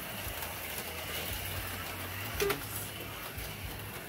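HO-scale slot cars running laps on a plastic track, their small electric motors and pickups whirring steadily, with one sharp clack about two and a half seconds in.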